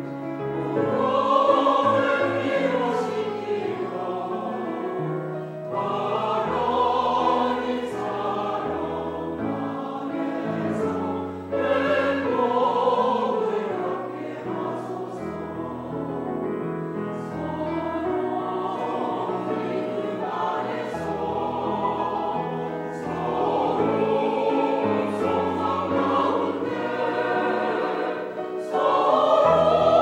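Mixed church choir of men's and women's voices singing a hymn in long, sustained phrases with short breaks between them, accompanied by piano.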